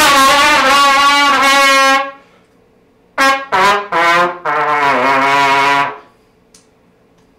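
Trumpet playing: a held note with a slight vibrato ends about two seconds in, and after a short pause a brief phrase follows, two short notes and then a long held note that stops about six seconds in.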